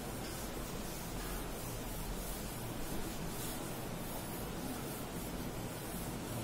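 Chalkboard eraser wiping across the board in repeated strokes, a soft swishing over a steady background hiss.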